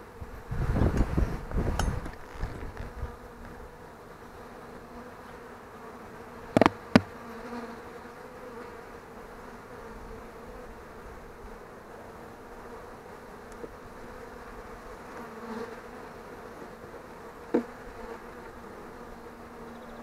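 Honeybees of a weakened, queenless colony buzzing around the opened hive, a steady hum. A burst of low rumbling in the first couple of seconds, and a few sharp knocks as frames are handled with the hive tool: two close together about a third of the way in and one near the end.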